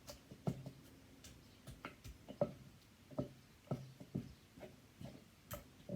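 Pestle pounding in a mortar, a steady run of dull knocks about twice a second, as tomato and the other som tum ingredients are smashed and mixed together.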